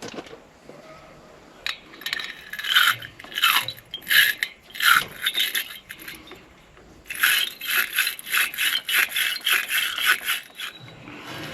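Hand scrubbing of a corroded battery terminal, harsh scraping strokes. It comes in two spells: a few separate strokes, then a fast run of about four strokes a second.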